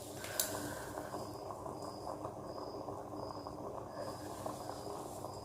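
Water simmering and crackling inside an electric steam vaporizer as it comes up to steam, with small ticks. A faint high chirp repeats about once every three-quarters of a second from about a second in.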